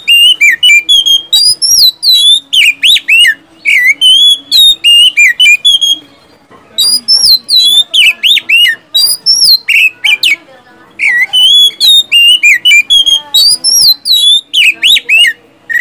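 Oriental magpie-robin (kacer) singing loud, rapid phrases of sliding whistled notes, pausing briefly about six seconds in and again about ten and a half seconds in.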